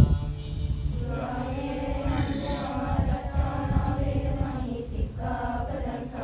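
A group of voices chanting Buddhist devotional verses in unison, with long held notes on a slow melody and brief pauses for breath, over a low rumble.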